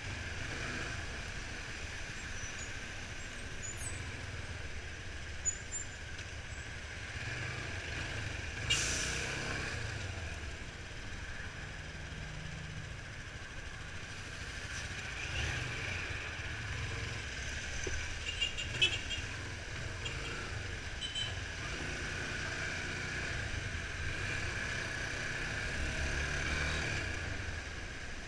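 Yamaha Fazer 250's single-cylinder engine and the surrounding traffic, muffled as heard through a sealed waterproof camera housing, with an uneven low rumble. A short sharp hiss comes about nine seconds in, and a few small clicks follow near the middle.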